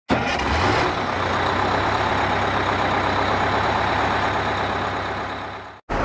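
A heavy vehicle's engine running steadily, fading and then cutting off near the end.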